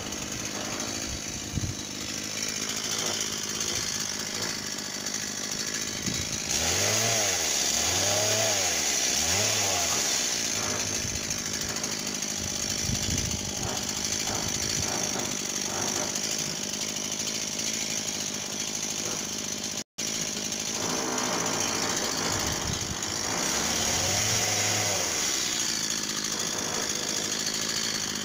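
Stihl MS 170 two-stroke chainsaw running continuously, revving up and back down several times from about a third of the way in and again near the end.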